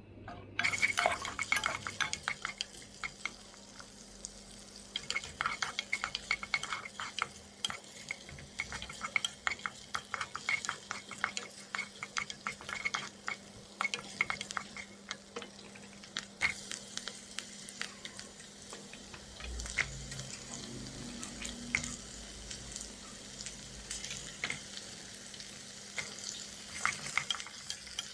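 Wooden spoon stirring and scraping sliced onions in butter in a nonstick marble-coated pot, with many small clicks over a steady frying sizzle.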